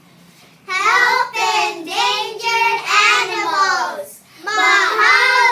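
Young girls' voices singing a short phrase, starting about a second in, with a brief break just after the middle and then a held note near the end.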